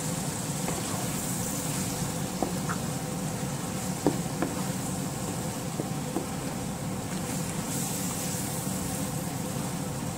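Ground beef and grated carrots sizzling in a frying pan as they are stirred with a wooden spatula, with occasional light taps and scrapes of the spatula on the pan, over a steady low hum.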